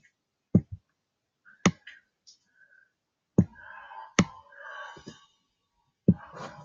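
Computer mouse button clicking, a handful of sharp single clicks at uneven intervals while drawing in a paint program, with a faint rustling noise between some of them.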